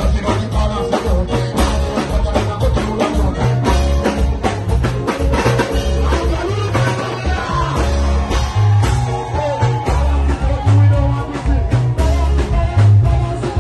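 Live band music: a heavy bass line and drum kit beat with guitar, and a voice singing over it through the PA.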